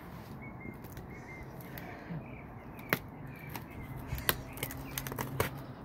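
A small knife blade slitting the packing tape on a cardboard mailing box, with a few sharp clicks and scrapes about three seconds in and a quicker run of them in the second half.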